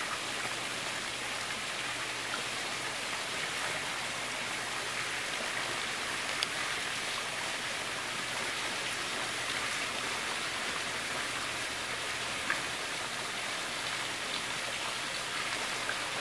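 Steady rushing hiss of running water, with two short clicks about six seconds in and again past twelve seconds.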